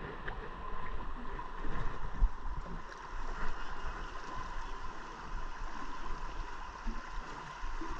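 Water splashing and lapping against an aluminum boat hull on choppy water, with small irregular knocks and a faint steady high tone underneath.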